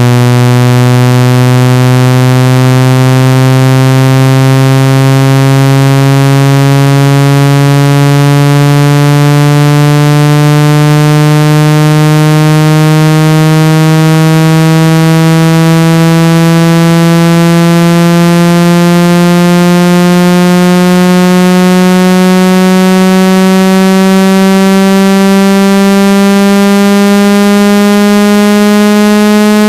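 Synthesized speaker water-ejection tone: one loud, buzzy tone full of overtones, gliding slowly and steadily upward in pitch. It is played at high volume so the vibration shakes water out of a phone speaker or earpiece.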